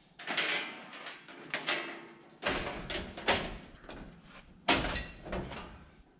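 Sheet-metal cover of an electrical breaker panel being handled and fitted into place: a run of metal clanks, rattles and scrapes, the sharpest about three-quarters of the way through.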